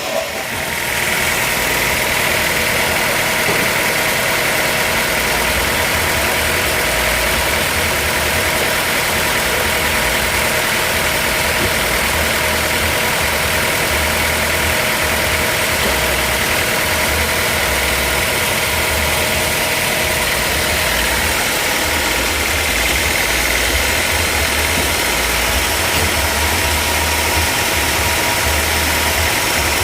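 Sawmill machinery running steadily: an engine hum with a steady high whine over it.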